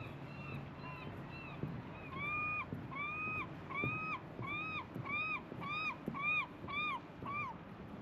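A gull calling: a run of clear, arched calls, each rising and falling in pitch. They are faint at first, then louder from about two seconds in, and come faster and shorter toward the end.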